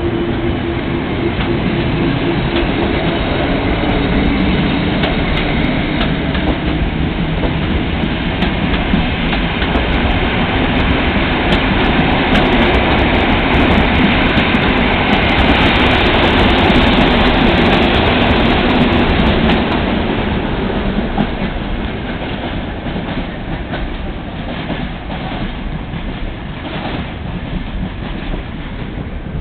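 Passenger coaches of a departing express train rolling past, with a steady rumble and wheels clicking over the track. The noise peaks around the middle and fades as the last coach pulls away.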